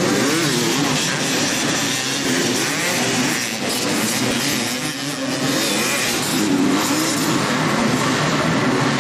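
Several motocross dirt bike engines revving, their pitch rising and falling repeatedly as the riders work the throttle and shift through the track.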